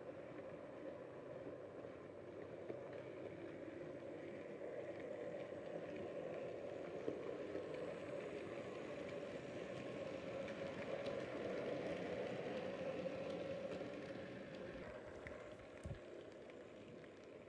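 Hornby Terrier OO gauge model locomotive's small electric motor whirring as it hauls a train of wagons, the wheels rolling over the track with occasional light clicks; louder in the middle as the train passes close, then fading. A short low thump near the end.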